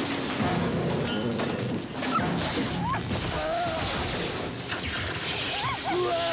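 Dramatic soundtrack: music under a dense wash of crashing, smashing sound effects, with a few short gliding tones near the middle and end.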